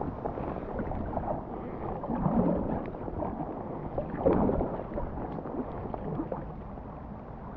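Rain falling on a loch and on a kayak's deck, a steady wash with many small drop taps, and a couple of louder swells of water noise about two and four seconds in.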